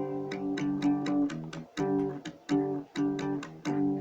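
Guitar strumming power chords in a steady rhythm, about three to four strums a second, moving between chord shapes.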